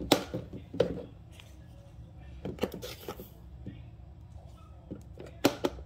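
A handful of sharp clicks and knocks from kitchen containers and utensils being handled, the loudest near the start and about five and a half seconds in.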